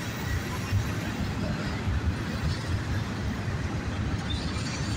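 CSX freight train rolling past, its cars making a steady low rumble on the rails.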